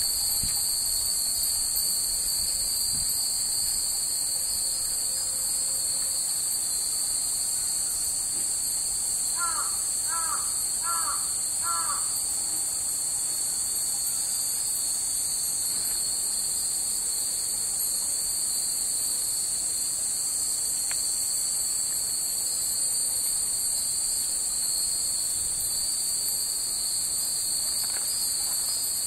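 Dense, steady drone of summer cicadas, with a crow cawing four times about ten seconds in.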